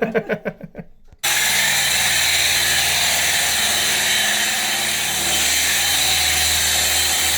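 A power tool, a drill, starts suddenly about a second in and runs steadily at full speed without a break.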